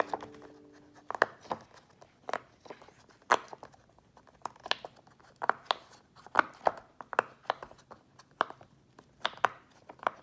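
Irregular sharp taps, clicks and crinkles, about one or two a second, as fingers handle and tap a giant game-controller puppet toy for ASMR.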